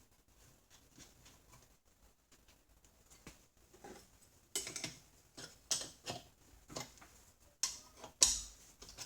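Faint small metal ticks, then from about halfway a run of sharper metal clinks and clanks, roughly one a second: nuts being run down and tightened with a wrench on the studs of steel vise hold-down clamps.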